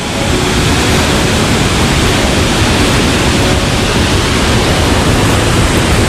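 Large waterfall with a great volume of water coming down from a height: a loud, steady rush of falling water.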